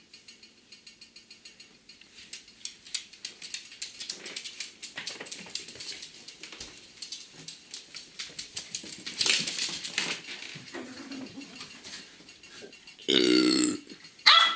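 A papillon and a Shetland sheepdog playing: quick clicks and scrabbling of claws on a hard floor, then near the end a dog barks twice, the first bark longer and louder.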